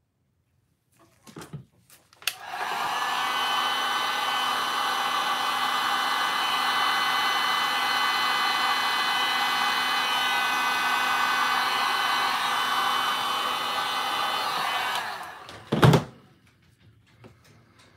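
Electric heat gun switched on about two seconds in and blowing steadily over freshly poured epoxy resin, a loud even rush of air with a fixed fan whine. It stops about fifteen seconds in, followed by a single knock.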